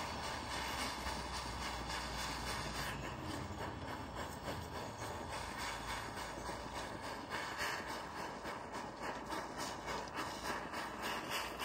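Jeweller's gas torch flame hissing steadily while it heats a twisted gold wire to a glow.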